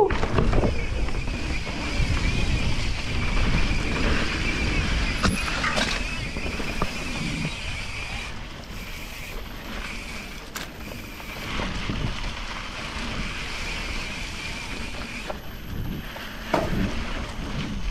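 Full-suspension mountain bike descending a dirt singletrack: wind rushing over the microphone and tyres rolling on dirt and leaves, with a few sharp knocks and rattles from the bike over bumps and a steady high buzz through the first half.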